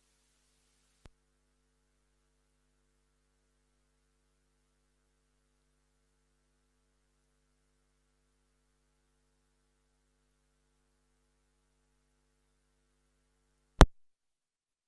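Faint steady electrical hum, with a faint click about a second in and a sharp, loud click near the end.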